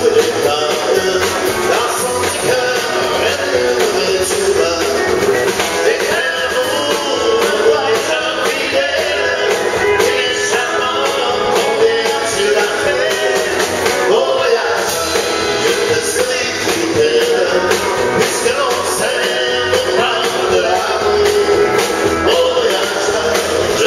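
Live country band music: a man and a woman singing together into microphones over strummed acoustic guitar and a drum kit.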